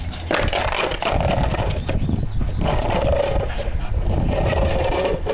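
Pembroke Welsh corgi growling while gripping a frisbee: a long, continuous growl with a brief break a little before the middle.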